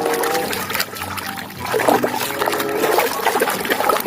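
Water trickling and splashing as a muddy plastic toy is rinsed clean, with music playing over it that grows stronger about halfway through.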